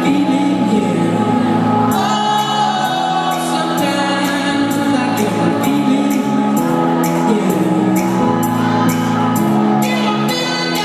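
House music played by a DJ over a club sound system: a sung vocal over a steady dance beat.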